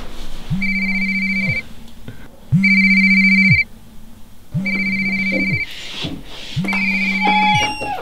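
Mobile phone ringing on vibrate: a buzzing vibration motor together with a high, beeping ringtone, one second on and one second off, four times.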